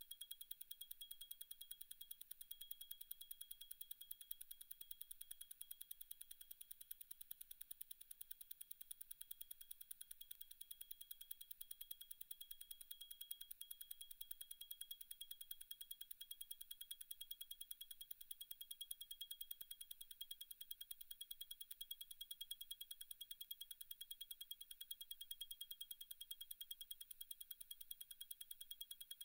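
Zenith El Primero 3600 automatic chronograph movement ticking very fast and evenly at 36,000 vibrations per hour, ten beats a second, faint and close-miked. A thin steady high tone runs beneath the ticking.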